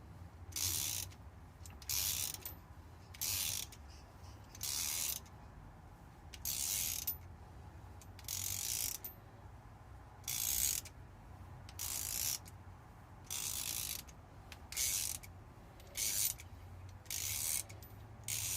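Ratchet wrench clicking in short bursts, about one every second and a bit, as it backs a thread-cutting die off a bolt with repeated return strokes.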